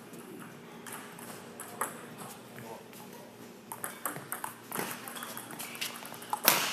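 Badminton rally: rackets striking the shuttlecock about once a second, each hit a sharp crack, the hits getting louder with the loudest near the end.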